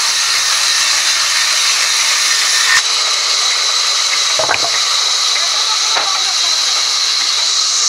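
Sawmill band saw running and cutting wooden planks with a loud, steady hiss. A sharp click comes a little before halfway, and a few knocks from the wood being handled follow later.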